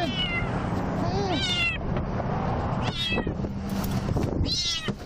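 A three-month-old kitten meowing four times, high-pitched, over a steady background hum; the kitten sounds unhappy at being caught.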